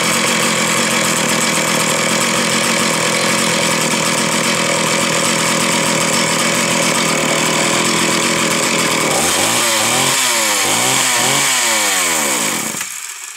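Two-stroke chainsaw engine running at high speed. From about nine seconds in, its pitch swings up and down several times, then the sound dies away near the end.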